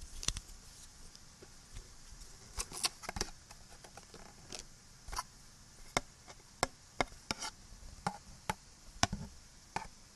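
Close-miked tapping and clicking on small hard objects: irregular sharp taps, a quick cluster about three seconds in and single taps spaced through the rest, over a steady recording hiss.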